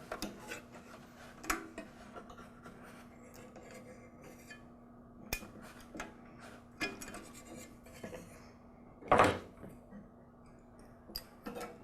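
Hand tools and metal parts handled while a lawn mower carburetor is removed: scattered light clicks, metallic clinks and rubbing, with one louder scraping clatter about nine seconds in.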